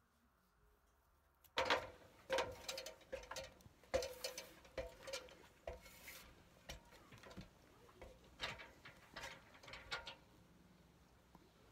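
Aluminum ladder knocking and clanking under someone's feet and hands as he climbs it: a run of uneven metallic knocks that starts about a second and a half in and dies away about ten seconds in.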